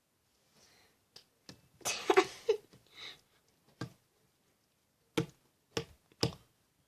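Slime being worked by hand: a cluster of squishy clicks and pops about two seconds in, then three sharp pops about half a second apart near the end.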